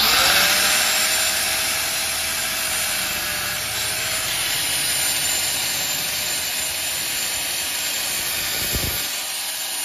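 Electric angle grinder starting up at once and running with a steady whine and hiss as its disc cuts through a motorcycle's worn drive chain, which has no master link and so has to be cut off.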